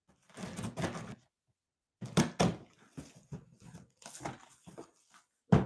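A large cardboard box being opened: a knife slitting the packing tape, then the cardboard flaps scraping and rustling as they are pulled up, with a sharp thump near the end.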